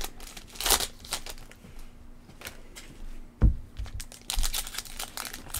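Foil trading-card packs crinkling in short bursts as they are handled and opened by hand, with one dull knock on the table about three and a half seconds in.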